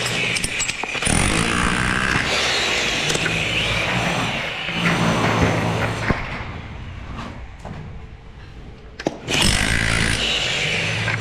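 A motor-driven machine or power tool running with a low hum and a noisy whine. It dies down about six seconds in and picks up again sharply a little after nine seconds.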